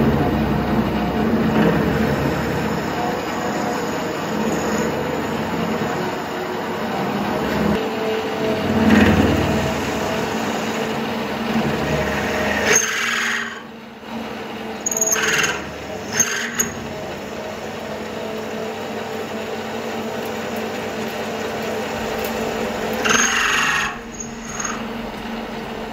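Bernardo Profi 550 WQV bench metal lathe running under power while turning a steel bar, a steady machine hum with a few held tones. About halfway through it briefly dips, then several short, harsher bursts come, and one more comes near the end.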